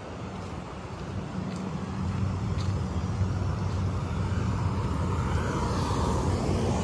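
A car drives past on wet asphalt: tyre hiss and engine noise build over a few seconds and peak just before the end, over a steady low rumble.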